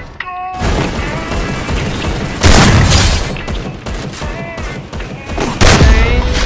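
A song with sung vocals, broken by two very loud blasts, about two and a half seconds and five and a half seconds in.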